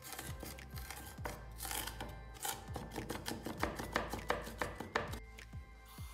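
Mezzaluna chopping red onion on a wooden cutting board: a rapid, uneven run of knocks as the blade rocks through the onion.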